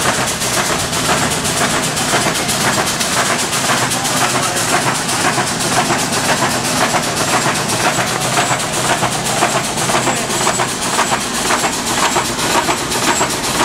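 1904 American LaFrance steam fire engine pumping water, its steam pump running with a rapid, even chuffing and a hiss of exhaust steam.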